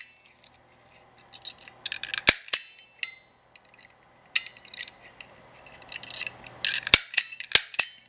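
KLOM manual lock pick gun snapping, sharp metallic clicks as its needle strikes the pins of a brass pin-tumbler lock cylinder to pick it. The clicks come in three quick bursts about two, four and a half, and seven seconds in.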